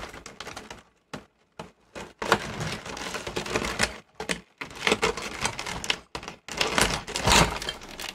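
Small plastic wiring-harness connectors being worked loose and unplugged inside a VCR chassis: irregular clicks and rustling of wires against the plastic frame, with a short pause about a second in.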